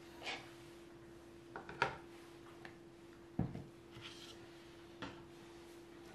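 Plastic jugs of soap batter being picked up and set down on a table: several light knocks and taps, the clearest about two and three and a half seconds in, over a faint steady hum.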